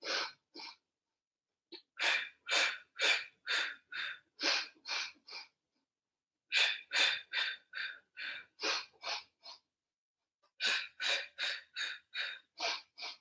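A person's short, sharp breaths puffed in and out in quick runs of about ten, three runs with brief pauses between: the staccato breathing of the Pilates hundred.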